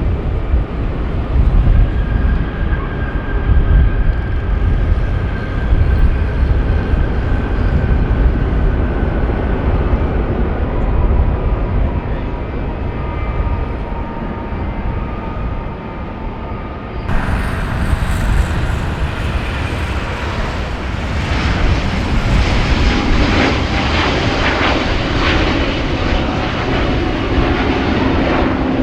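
Jet airliner engines: a deep rumble with thin whining tones. About two-thirds of the way through it gives way abruptly to a brighter, hissier jet roar.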